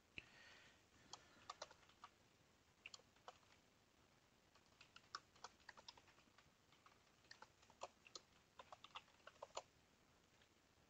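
Faint computer keyboard typing: irregular key clicks in short runs with brief pauses, as a console command is typed out.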